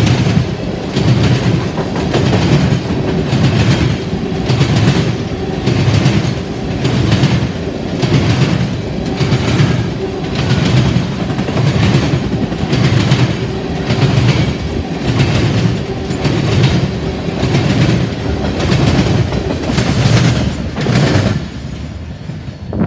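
Steel wheels of a freight train's tank cars clacking over the rails in a steady rhythm, about one beat a second, over a steady hum. The sound drops away near the end as the last car passes.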